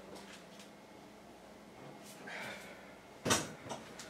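A glass beer bottle falls to the floor and breaks: one sharp crash about three seconds in, followed by a smaller clink.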